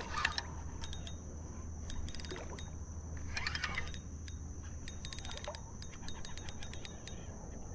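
Steady creek water noise with scattered clusters of light clicks and rattles.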